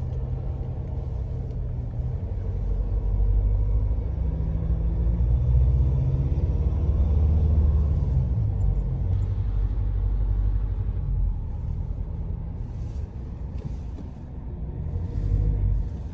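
4x4 pickup's engine and tyres heard from inside the cabin, a low rumble that rises and falls in pitch as it drives slowly along a grassy dirt track, easing off a little near the end.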